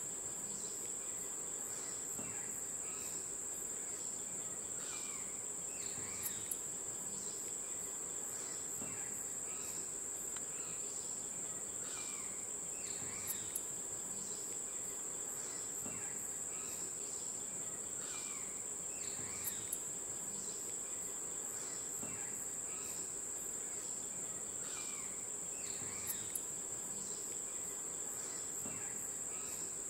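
Steady, unbroken high-pitched drone of an insect chorus. Brief falling calls and faint clicks come back every six or seven seconds.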